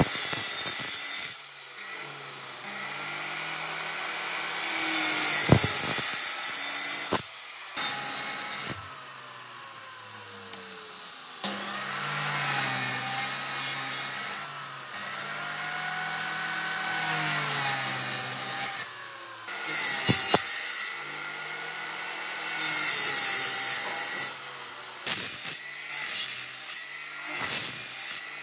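Power tool cutting and shaping wood in several passes, its motor pitch wavering as it bites into the wood, with short pauses between passes.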